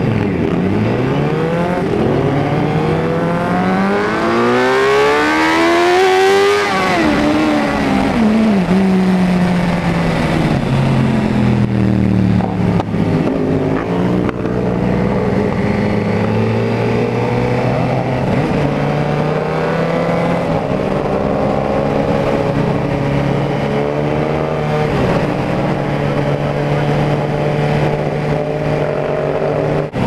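Suzuki GSX-R 750 inline-four motorcycle engine, heard on board, accelerating hard with its pitch climbing steadily to a high-rev peak about six seconds in. It then backs off and drops in pitch over a few seconds, and settles into steady cruising with small throttle changes.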